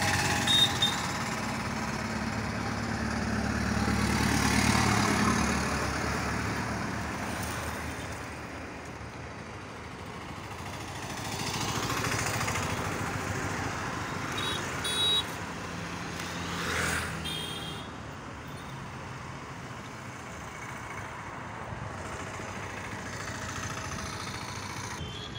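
Road traffic going by: auto-rickshaws and cars passing, their engines swelling and fading several times, with a few short high-pitched beeps about halfway through.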